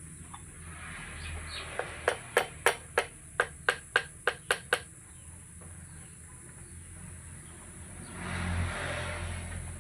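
A quick series of about ten sharp clicks, roughly three a second, then a brief swell of hiss, while blades are being fitted into a wood planer.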